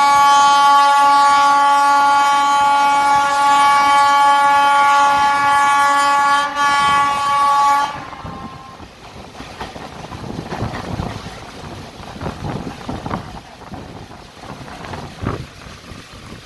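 An electric locomotive's horn sounds one long, loud, continuous blast for about eight seconds, wavering briefly near the end, then cuts off. The quieter, uneven running noise of the train follows.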